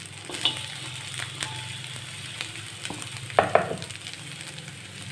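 Fried rice with egg sizzling in a metal wok, with a metal spatula scraping and tapping against the pan as it is stirred. Two louder sharp clatters come about three and a half seconds in.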